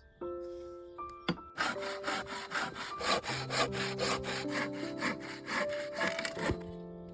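Hand saw cutting through wood in quick, even back-and-forth strokes, about four a second, starting a second and a half in and stopping near the end, over soft background music.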